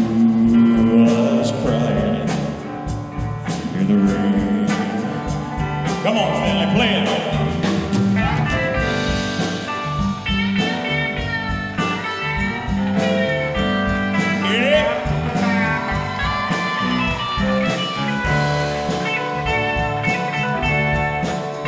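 A live band playing a slow country ballad: electric guitar lead over bass, drums and keyboards, with sung vocals in the first several seconds, then an instrumental passage of held and bending guitar notes.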